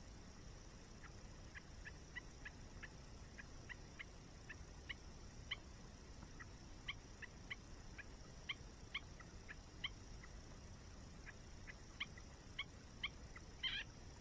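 Campfire crackling: short, irregular pops of burning wood, a couple a second, with a quick cluster of louder pops near the end, over the steady low rush of a waterfall.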